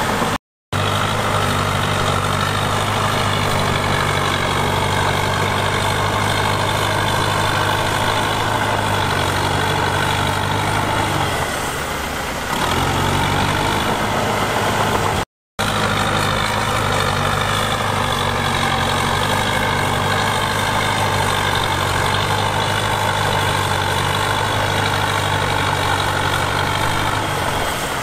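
Heavy diesel engine of earthmoving equipment running steadily. Its note dips briefly and changes about twelve seconds in. The sound cuts out for an instant twice, just after the start and about halfway through.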